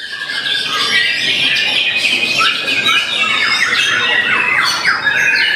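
White-rumped shama (murai batu) singing a fast, unbroken run of varied whistles and quick sweeping notes, a song full of mimicked calls of other birds (isian).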